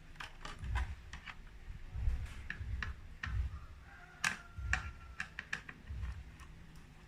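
Irregular clicks and taps of hands working motorcycle plastic body panels and their fittings, with dull low thumps of handling and a brief squeak about four seconds in.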